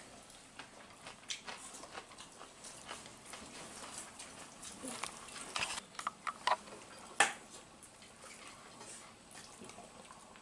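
Faint sounds of a family eating biryani by hand at the table: scattered light clicks and taps on plates, with a sharper click about seven seconds in.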